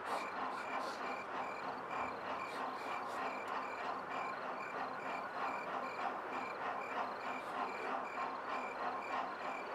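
Insects chirping in a steady rhythm, about two to three chirps a second, over an even hiss.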